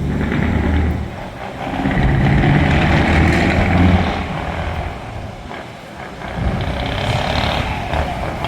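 Truck V8 engine revving through open exhaust pipes, swelling loud in repeated bursts and dropping back between them.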